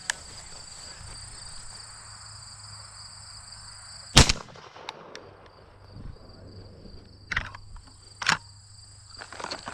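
A single close shotgun shot about four seconds in, over a steady high drone of insects that partly falls quiet after the shot. Two fainter short knocks follow a few seconds later.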